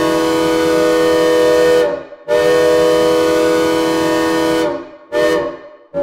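Synthesized recreation of a Southern Pacific six-chime steam locomotive whistle sounding a steady chord at a fixed pitch, with reverb. One blast ends about two seconds in, a second long blast follows, then a short toot near the end.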